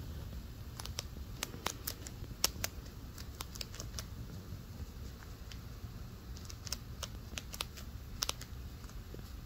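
Chinchilla nibbling a hard dry treat held in its front paws: a run of small crisp crunches, several a second, that thins out in the middle and picks up again near the end.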